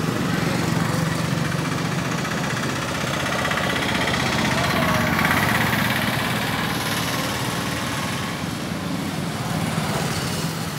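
Steady road traffic noise with small engines running close by, from motor scooters and motorbikes on the road beside the river.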